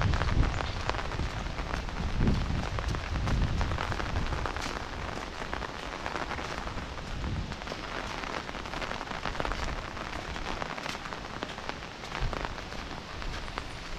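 Rain falling steadily, an even hiss dotted with many small drop ticks. A low rumble in the first few seconds dies away.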